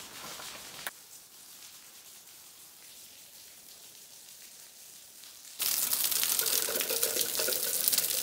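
Spring water falling off a rock ledge and splashing, with a bottle held under the stream; it comes in suddenly about two-thirds of the way in. Before that there is only a faint hiss.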